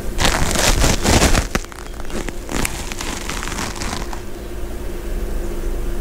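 Irregular scratchy crackling as heat sink paste is spread with a small screwdriver on the metal backs of two LA4440 amplifier ICs, densest in the first second and a half and trailing off by about four seconds, over a faint steady hum.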